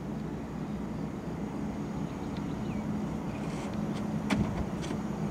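A boat's motor running steadily with a low hum, with a few light knocks, the sharpest a little past four seconds in.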